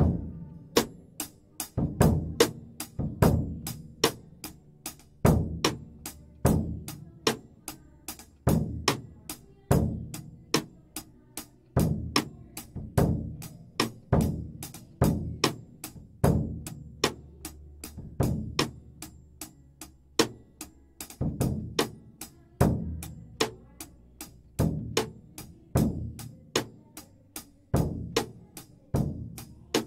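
Ludwig drum kit playing a steady rock beat of snare, kick drum and cymbals, about two hits a second, over low held notes from the band.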